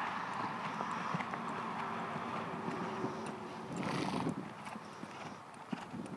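Hoofbeats of a horse loping on a soft dirt arena, with a brief rushing noise about four seconds in.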